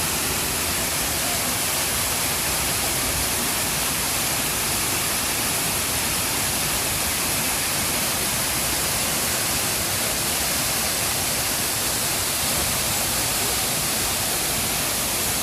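Rocky waterfall on a river, its water crashing over the rocks in a steady, loud, unbroken rush.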